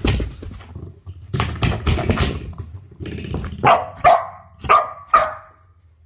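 Australian Shepherd playing noisily with rough, scuffling sounds for the first few seconds, then barking sharply four times, about half a second apart.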